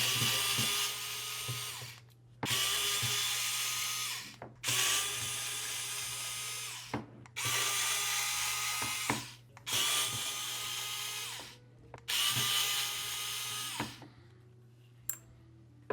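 Small electric screwdriver backing out the small screws that hold a drone remote controller's RF board assembly to its main board. It runs in six separate spells of about two seconds each, each a steady motor whine.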